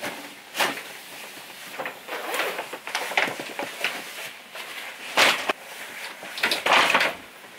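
Rustling and handling noises of a paper shopping bag, bags and clothing being set down and moved about, in irregular bursts with the loudest rustles about five seconds in and near the end.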